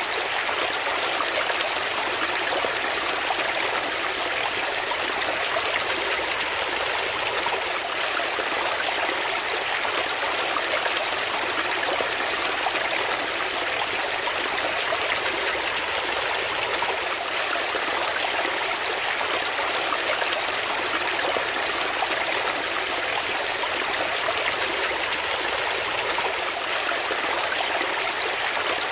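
Shallow brook running and splashing over rocks in small cascades: a steady, even rush of water, bright and hissy, with little deep rumble.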